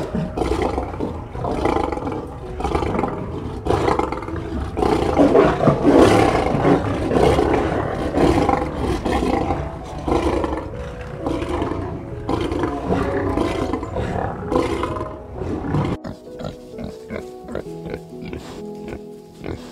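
Lion roaring again and again over soft background music; the roars stop abruptly about sixteen seconds in and only the music goes on.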